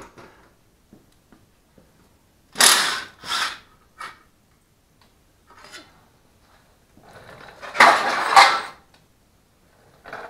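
Cordless power driver run in short bursts, backing out fasteners on a small engine: two quick bursts about three seconds in, then a longer one near the end, with faint clicks of parts and tools between.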